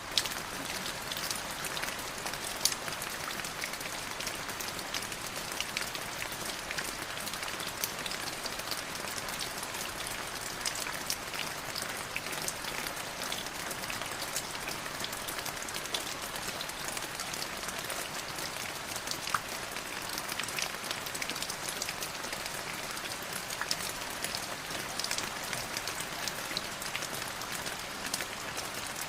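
Light drizzling rain falling steadily on a surface, a continuous soft hiss scattered with many small drop ticks.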